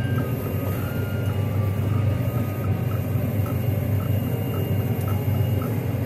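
Combine harvester running steadily as its header cuts standing wheat: a deep, even engine drone, with a short high chirp repeating about twice a second.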